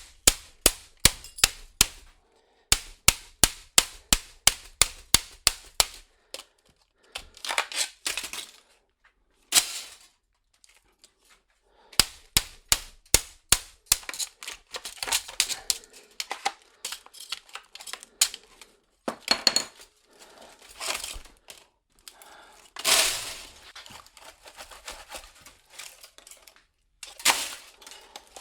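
Hammer blows on the steel plates of a transformer core: quick runs of sharp metallic strikes, about three a second, broken by pauses and a few longer scraping, clattering sounds.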